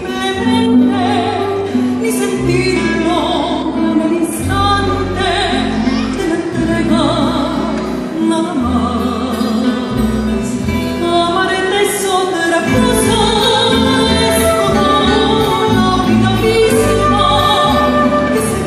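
A woman singing a slow melody with vibrato, accompanied live by electric bass and acoustic guitars.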